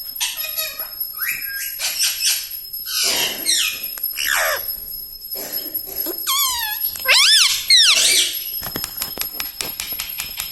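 Rose-ringed (Indian ringneck) parakeet squawking and chattering: a string of shrill calls that slide up and down in pitch, loudest as wavering screeches a little past the middle, followed by a quick run of ticking clicks near the end.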